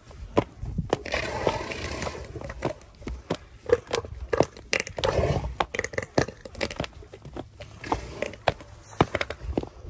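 Elephant seals mating: irregular knocks, slaps and scrapes as their heavy bodies and flippers shift against each other and the muddy ground, with two longer rasping stretches, about a second in and about five seconds in.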